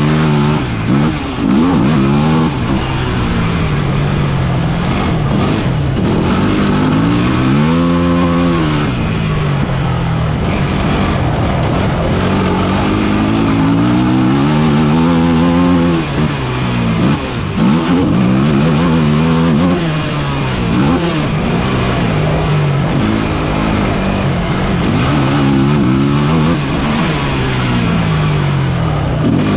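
Off-road vehicle engine heard up close, revving up and dropping back again and again as it accelerates and changes gear, with a larger rise and fall about eight seconds in. Steady rushing noise from wind and the road lies under it.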